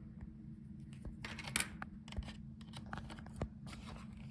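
Faint handling noise of small laptop parts: scattered light clicks and scrapes, a little louder around a second and a half in, over a steady low hum.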